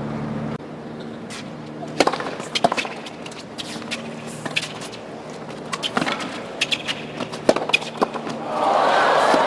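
Tennis rally on a hard court: a series of sharp racket-on-ball hits at uneven intervals, about one to two seconds apart. Near the end, crowd applause rises as the point finishes.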